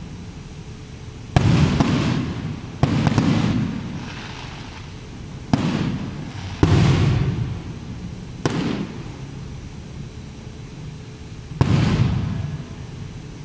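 Aerial firework shells bursting in the sky: six sharp bangs spread over about ten seconds, each trailing off in a low rumble for a second or so.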